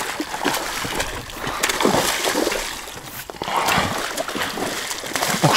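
Hooked wild carp (sazan) thrashing at the water's surface during the fight, a run of irregular splashes.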